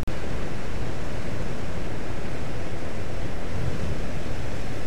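Steady rushing of sea surf against a rocky lava shore, with wind rumbling on the microphone.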